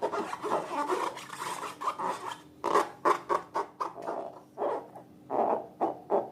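Slime being squished and worked by hand: quick, irregular sticky squelches and scrapes, several a second, with the odd sharp click.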